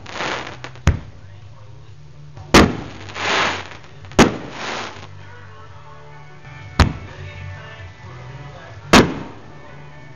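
Aerial fireworks shells bursting with sharp bangs, five of them one and a half to two and a half seconds apart, several followed by a short hissing crackle as the stars burn out.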